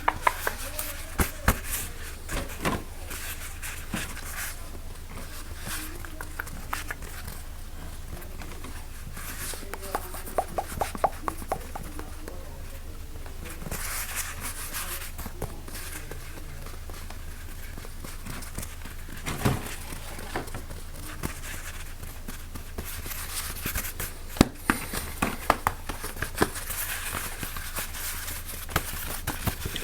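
A quick run of close-miked ASMR triggers: objects tapped, clicked and crinkled right at the microphone, in short changing bursts.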